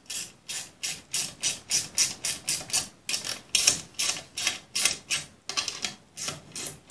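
Screws being turned in through a wood chipper's red steel guard, making short even scraping strokes, about four a second, as each screw is worked down its thread.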